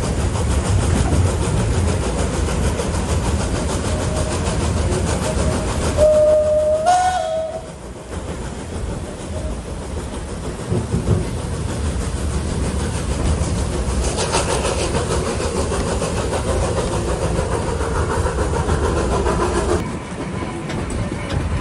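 Steady rumble and clatter of a narrow-gauge steam train on the move, heard from an open carriage window. About six seconds in, the HG 3/4 steam locomotive's whistle sounds once for about a second and a half, stepping up slightly in pitch near its end.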